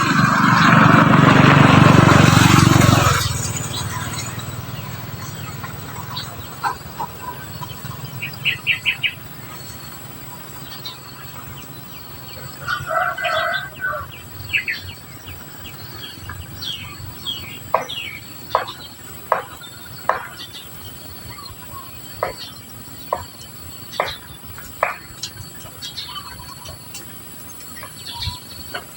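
Society finches giving short chirps and calls at irregular intervals. A loud, noisy sound fills the first three seconds.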